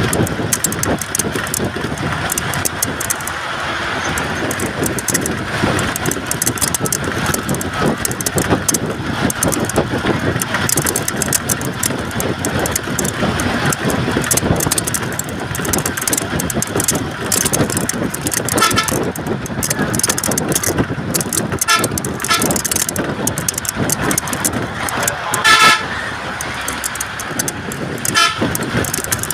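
Steady road and engine noise heard from inside a moving vehicle, with four short vehicle-horn toots in the second half, the third the loudest.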